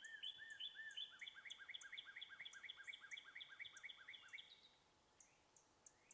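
Faint songbird song: one bird sings a rapid trill of repeated notes, about five a second, that stops about four and a half seconds in, while another gives thin high chips throughout.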